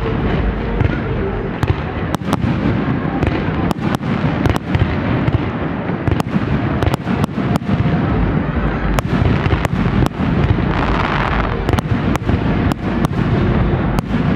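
Aerial firework shells bursting in quick, irregular succession: a string of sharp bangs over a continuous low rumble of booms.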